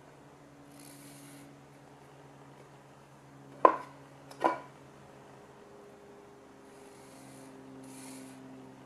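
A wooden block knocked twice on a wooden workbench, less than a second apart, about halfway through. A felt-tip marker scratching short lines on bare wood before and after.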